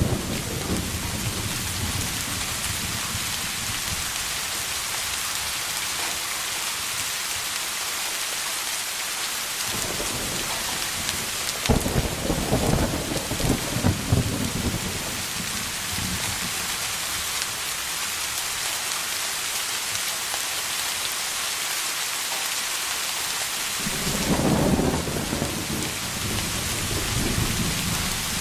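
Thunderstorm: steady rain hissing throughout, with thunder rumbling several times, a rumble dying away in the first couple of seconds, a sharp crack about twelve seconds in that rolls on for a few seconds, and another long rumble about twenty-four seconds in.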